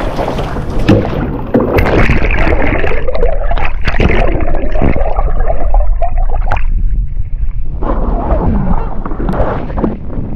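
Water sloshing and gurgling at the boat's side, with scattered knocks and splashes, while a hooked marlin is held alongside to be filmed in the water.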